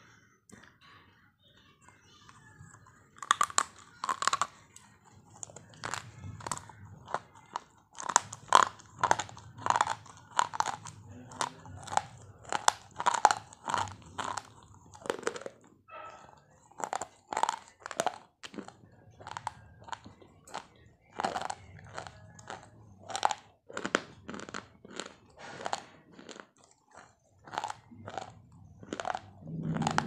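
Hard white chalk sticks being bitten and chewed: sharp, crisp crunches, about one to two a second, starting about three seconds in.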